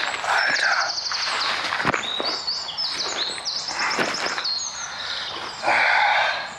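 Songbirds singing, with repeated high chirps and trills throughout. Over them, rustling of a backpack and clothing as the pack is lifted and set down, loudest near the end, with a couple of light knocks.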